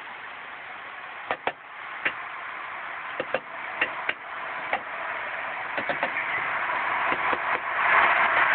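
About a dozen sharp knocks or taps on an RV door, spaced unevenly, with no one there to make them. A steady rushing noise grows louder toward the end.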